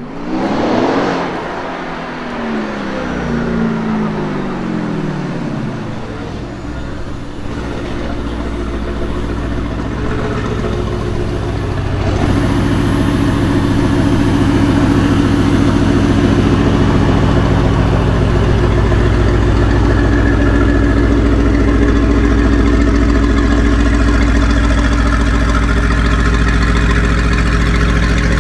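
Mercedes-AMG GT R's twin-turbo V8 through a loud exhaust: the revs flare at the start and fall away over about six seconds, then it settles into a steady idle, which gets louder about twelve seconds in.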